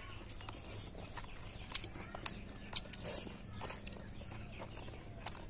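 Close-up eating sounds of rice and boiled egg being chewed with the mouth open: scattered small wet clicks and lip smacks, one sharper click about halfway through.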